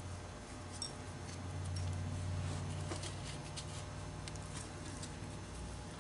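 Faint, scattered clicks and rubbing of small metal parts being handled on a CVT pulley as its steel balls are worked out, over a steady low hum.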